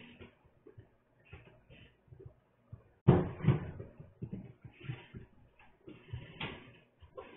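A door being pushed open against puppies lying in front of it, bumping and knocking: one loud thud about three seconds in, then scattered lighter knocks.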